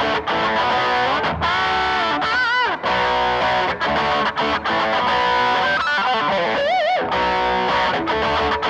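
Electric guitar played through a Blackstar HT5R 5-watt valve combo amp with overdrive, in a lead line of quick note runs and two held, bent notes with wide vibrato, about two and a half seconds in and near seven seconds.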